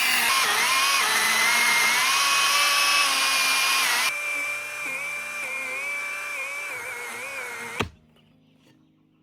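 Small electric saw cutting into a thick tree root, its motor whining with a pitch that wavers and sags as the blade loads up. It turns quieter about four seconds in and stops with a knock near the end.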